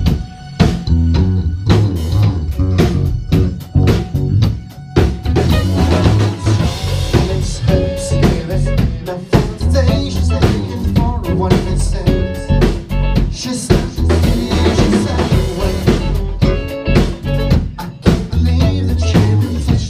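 Rock band playing live: a drum kit keeping a steady beat under electric guitars, an instrumental passage with no singing.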